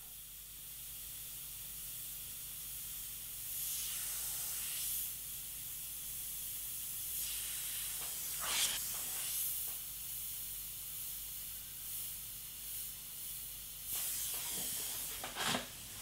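Iwata Micron CMSB airbrush spraying thinned white paint through its 0.18 mm needle and nozzle: a steady hiss of compressed air that swells louder three times.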